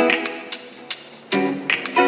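Background music: a light instrumental track with plucked guitar-like notes, a note fading away about a third of the way in and a new one struck near two-thirds.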